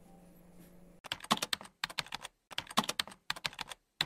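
Rapid, irregular keyboard-typing clicks, starting about a second in: a typing sound effect for text appearing letter by letter.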